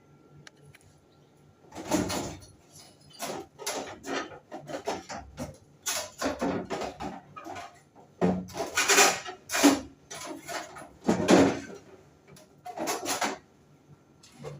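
Irregular scraping, rattling and knocking of a window air conditioner's metal casing and parts being handled during disassembly, with the loudest scrapes about two, nine and eleven seconds in.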